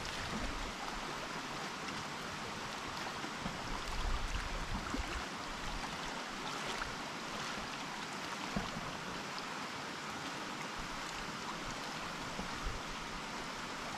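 Steady, even rushing outdoor ambience at a reservoir shore, water and air noise with no distinct event in it, and a stronger low rumble about four seconds in.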